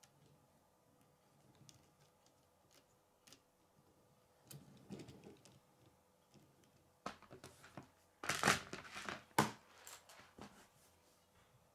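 Plastic K'nex pieces handled and fitted onto a model truck: scattered sharp clicks and rustling, with the loudest bout of rustling and clicking about two-thirds of the way in.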